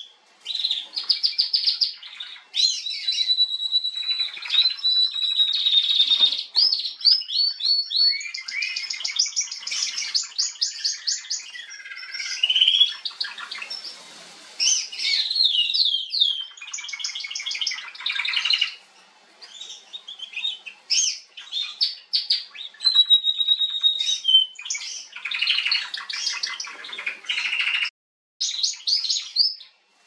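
Female Atlantic canary singing a long, varied song of rapid trills, fast runs of repeated notes and a few held whistles, broken by short pauses. Near the end the song breaks off suddenly for a moment, then resumes.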